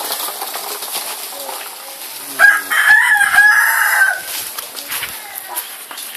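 A rooster crowing once, a loud call of about two seconds starting about two and a half seconds in.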